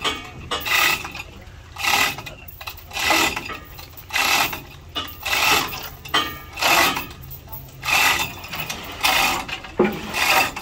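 A hand tool worked in steady rasping strokes, about one every second and a bit, with a ratchet-like mechanical edge to each stroke.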